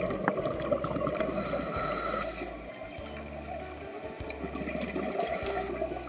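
Scuba divers' exhaled bubbles gurgling and rumbling underwater, with faint crackling throughout. A humpback whale's song carries in as a brief high call about a second and a half in, and again shortly before the end.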